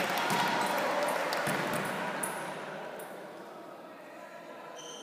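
Scattered applause and spectators' voices in a sports hall after a point, fading away over the first couple of seconds.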